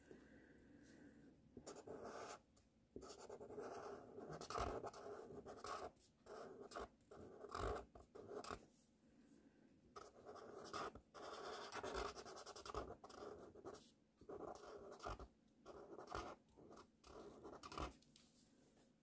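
Felt-tip marker writing cursive letters on paper: a faint scratchy rubbing in short strokes, broken by brief pauses.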